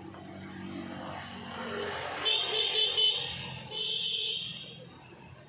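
A motor vehicle running with a low steady hum, then its horn sounding twice, about two seconds in and again near the four-second mark, the first honk about a second long and the second shorter.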